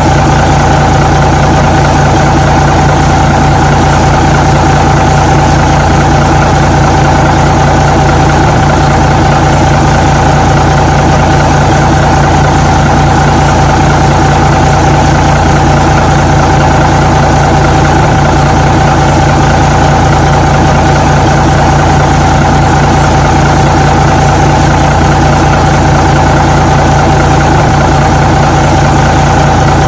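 Truck engine idling steadily, an even low rumble with a constant drone that never changes pitch.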